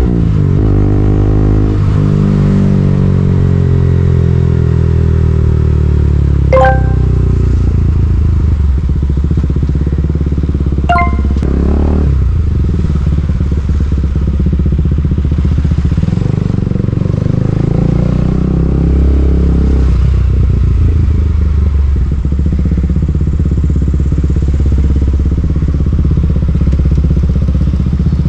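KTM Duke 200's single-cylinder engine running under way, its revs falling and rising through the gears. Two short, sharp high sounds stand out about six and a half and eleven seconds in.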